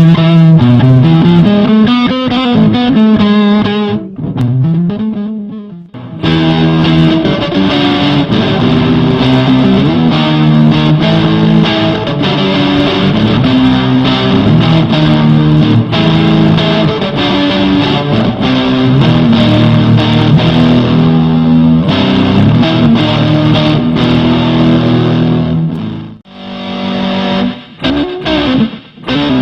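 Electric guitar played through a fuzz pedal with reverb, with low, heavy distorted riffing. The playing thins out and drops briefly about four seconds in, then comes back dense and loud. Near the end it turns into sparser, broken-up notes.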